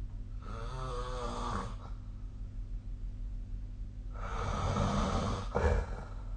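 A sleeping person snoring: two snores, the first a wavering, pitched rattle about half a second in, the second louder and rougher about four seconds in, ending in a short catch. A steady low hum runs underneath.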